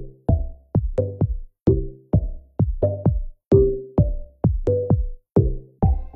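Background music with a steady beat of short, quickly fading notes, about two to three a second.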